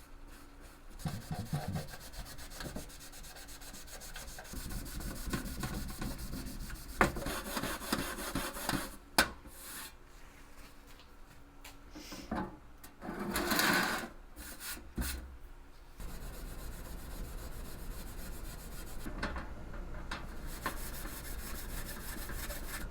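Cloth rubbing and scrubbing on the painted sheet metal of a vintage tool box, working rubbing alcohol in to lift the paint, in irregular strokes with a few sharp knocks and a louder burst of scrubbing about two-thirds of the way through.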